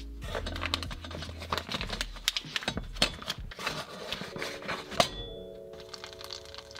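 Paper butter wrapper crinkling and rustling as a block of butter is peeled out into a copper saucepan, ending with one sharp knock about five seconds in as the butter lands in the pan.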